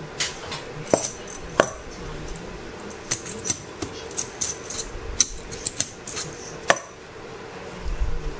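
Small metal parts and hand tools being handled on a workbench: an irregular series of sharp metallic clicks and clinks, some with a light ring.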